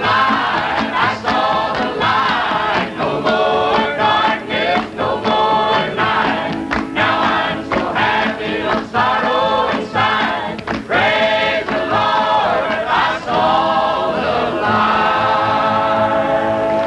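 Several voices singing a country gospel chorus in harmony over a band, ending on a long held note near the end.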